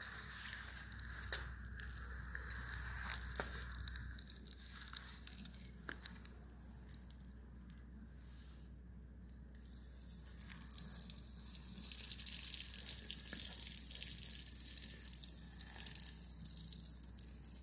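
Rustling at first, then from about ten seconds in a steady stream of urine splashing onto the ground.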